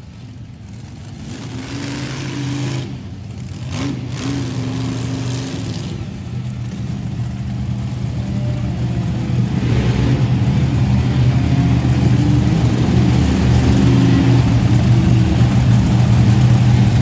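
Monster truck engine running with a steady deep drone that grows steadily louder.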